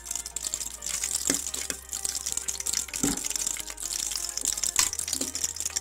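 Cashews and raisins frying in hot ghee in a pressure cooker, a steady sizzle full of small crackles, with a few soft knocks.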